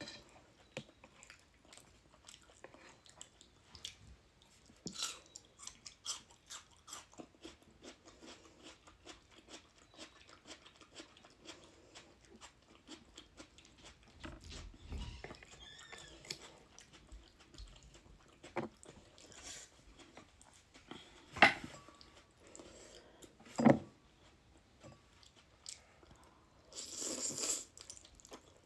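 Close-up chewing of a mouthful of ramen noodles, a steady run of small wet mouth clicks and smacks. Two loud sharp clicks come about two-thirds of the way through, and a short noisy burst near the end.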